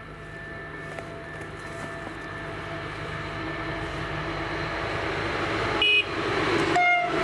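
Train approaching, its running noise growing steadily louder. Near the end it sounds two short horn blasts, one higher-pitched and then one lower.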